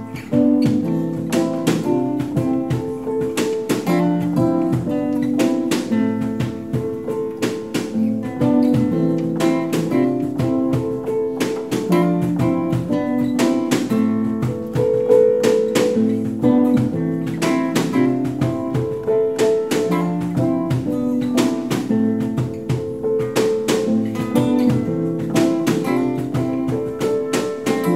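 Acoustic instrumental intro of a gentle pop song: strummed strings playing a repeating chord pattern in a steady rhythm, before any singing.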